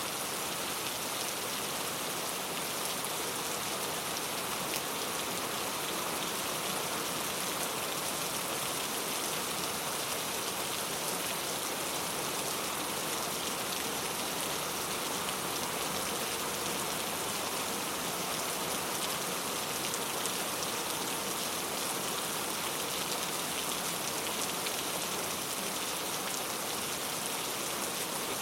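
Steady rain falling and pattering on a surface, an even dense hiss of many drops with no change or thunder.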